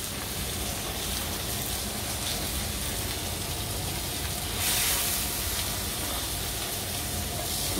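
Beef and duck burger patties in metal rings sizzling steadily in fat on a hot griddle plate, briefly louder about five seconds in.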